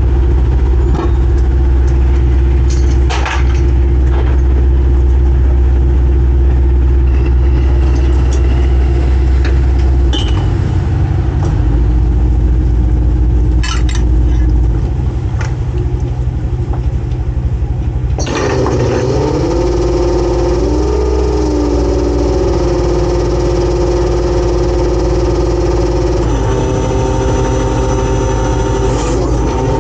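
A boat engine running steadily with a deep hum and a few sharp knocks. About eighteen seconds in, a second, higher drone joins and wavers up and down in pitch.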